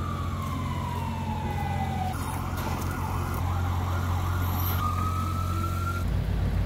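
Emergency vehicle siren: a long wail falling in pitch, switching about two seconds in to a fast yelp, then rising again near the end. Underneath is a steady low engine drone.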